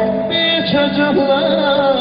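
Folk song sung with instrumental accompaniment. The voice bends and ornaments its notes over steady held tones.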